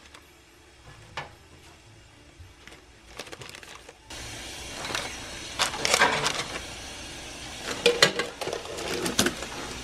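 Parchment paper crinkling and rustling as cookies are settled into a metal cake tin, then a few sharp clicks near the end as the tin's lid is pressed on.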